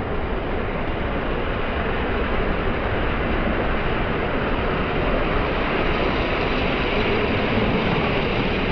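Model trains running on a layout: a steady, even rumble and hiss with no distinct clicks, growing slightly louder about halfway through.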